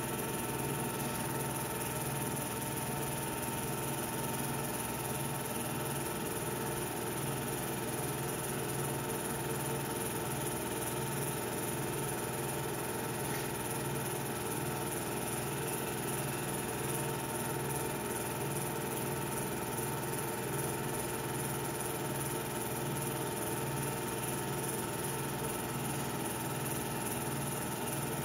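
Steady mechanical whir and hum of a running film projector, with an even hiss.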